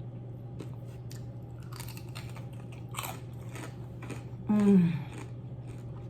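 Close-miked chewing and crunching of roasted pork, with crisp crackles scattered through. About four and a half seconds in comes a short falling "mm" hum, the loudest sound.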